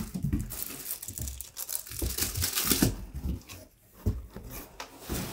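Bubble wrap rustling and crinkling in irregular bursts as it is handled and pulled out of a cardboard box.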